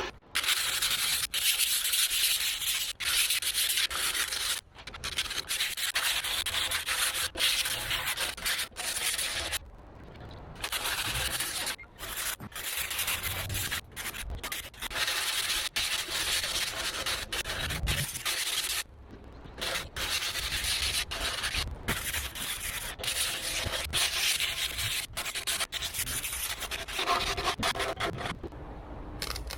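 Hand abrasion of the old air compressor's metal, rubbing it down to strip rust before priming, in stretches of scratchy rubbing broken by short pauses.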